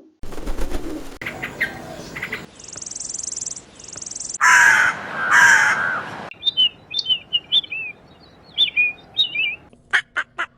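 A string of bird calls: two loud, harsh, crow-like caws about four and a half seconds in, followed by a run of quick high chirps, with a high buzzing trill before the caws and a few sharp clicks near the end.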